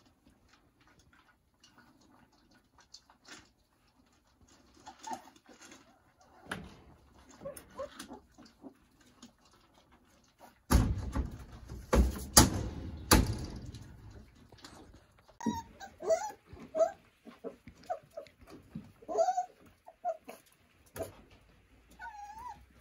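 Month-old Doberman puppies whimpering and squeaking in short, high yelps through the second half, with one longer rising-and-falling whine near the end. About eleven seconds in comes a loud burst of rustling with a few sharp knocks.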